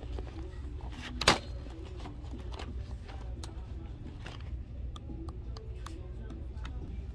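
Thin plastic placemats being flipped through by hand in a stack: soft clicks and slaps of the mats against each other, with one sharp snap about a second in, over a steady low rumble.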